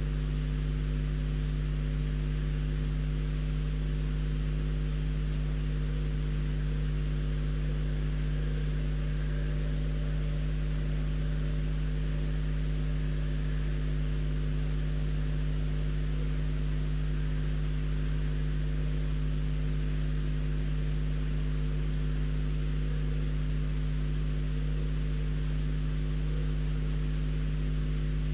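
Steady, unchanging hum made of several fixed low tones, over a constant hiss with a thin high whine; electrical or mechanical noise with no change over time.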